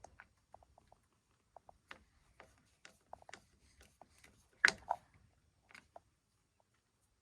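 Scattered small clicks and taps of plastic parts being handled and fitted while reassembling a lawnmower's handle switch lever, with one louder knock a little over halfway through.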